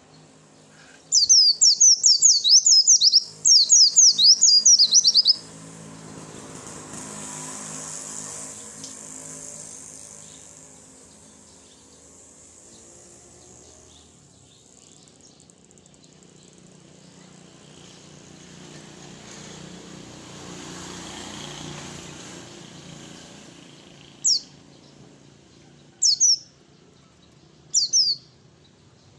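Pleci (white-eye) song: a rapid string of high, downward-sliding chirps in two quick phrases a second or so in, then a few single short chirps near the end.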